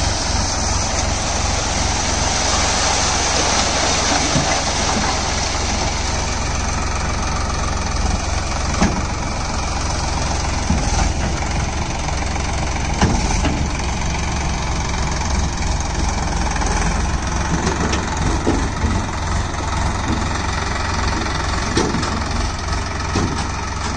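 Sonalika tractor's diesel engine running steadily while its tipping trolley is raised to dump a load of soil, with a few short knocks along the way.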